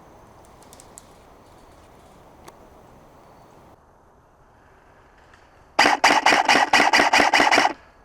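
An airsoft gun firing close by: a rapid string of about a dozen shots in roughly two seconds, starting about six seconds in.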